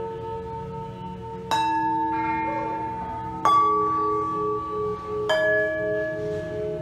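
Metal bowls struck with a mallet three times, about two seconds apart, each strike ringing on in long, clear tones over the still-sounding ring of the earlier ones. One of the lingering tones wavers in a slow, even pulse.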